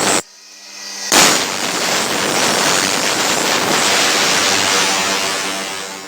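Steel blade being ground on a grinder: a dense rasping, crackling noise that starts abruptly about a second in and tapers off near the end.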